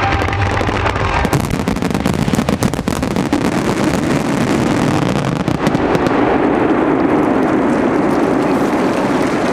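Fireworks finale: a quick run of sharp cracks and pops in the first few seconds, then a dense, steady crackling hiss.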